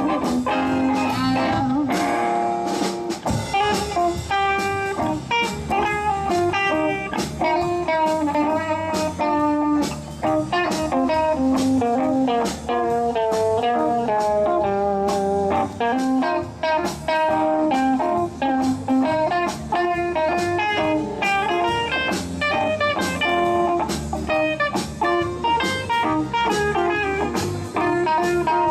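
A live band playing a blues-flavoured instrumental passage: a lead line of quick, stepping notes over bass guitar and drums, with electric guitar to the fore.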